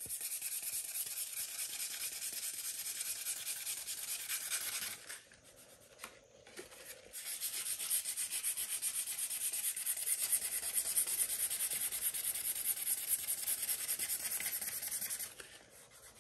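120-grit sandpaper rubbed by hand in quick back-and-forth strokes over a cured resin topcoat on a canvas, a steady scratchy rasp, sanding flaws out of the surface before it is recoated. The sanding stops for about two seconds near the middle, then resumes and stops shortly before the end.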